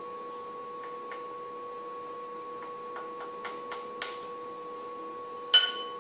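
A small metal tool tapping lightly on a steel workpiece in a milling-machine vise, about seven soft ticks, then one sharper strike near the end that rings briefly like a bell. The tapping nudges the plate into line at a 45-degree angle. A steady two-pitch hum sounds underneath.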